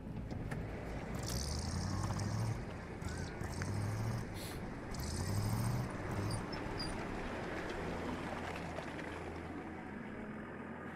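A heavy military vehicle's engine labouring on a steep mountain track, its pitch climbing several times as it revs during the first half, with bursts of hiss. It then settles to a steady low drone.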